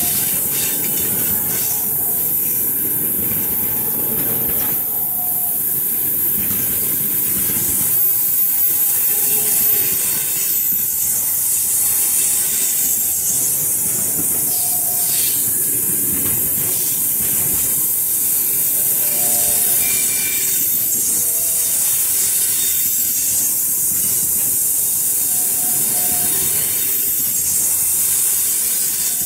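Passenger coaches rolling past at close range: the steady rumble of wheels on rails, with a high hiss over it.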